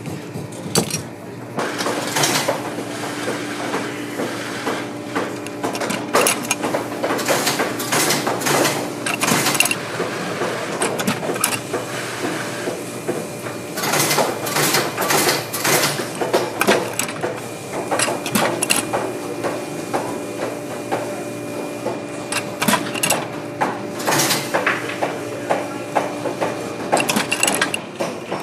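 Hand work on a boot at a bench-mounted eyelet-setting press: repeated metallic clicks and clunks, with a steady hum in the background for long stretches.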